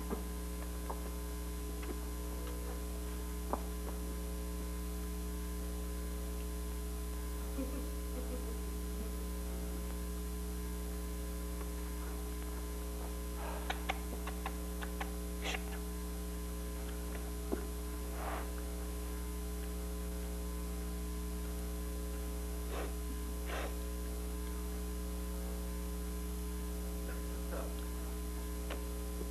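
Steady electrical mains hum, with a few faint scattered taps and knocks.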